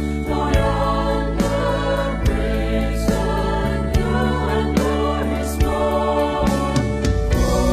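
Gospel-pop choir singing sustained harmonies with a band, over a held bass and a steady drum beat.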